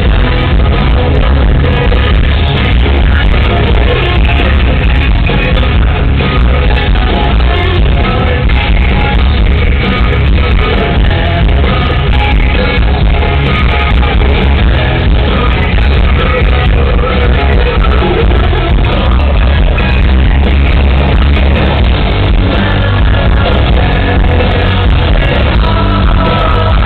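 Hard rock band playing live, with singing over dense, loud guitars and drums that sound dull and cut off in the highs.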